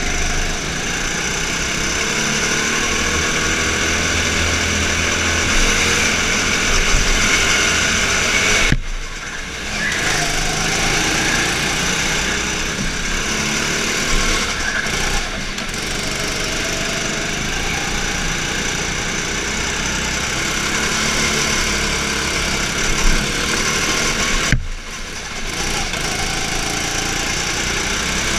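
Go-kart engine running hard, heard from on board the kart, its note rising and falling with the throttle. The sound drops away sharply twice, about nine and twenty-five seconds in, then picks up again.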